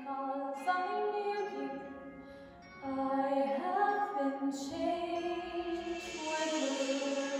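Slow music with a female voice singing long held notes.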